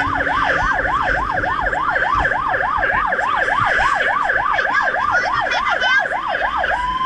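Fire truck's siren in yelp mode, sweeping rapidly up and down about three times a second, heard from inside the cab. Near the end it switches to a slow rising and falling wail.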